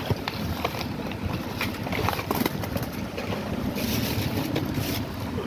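Rustling and irregular small clicks of plastic packaging and stationery items being handled close to the microphone.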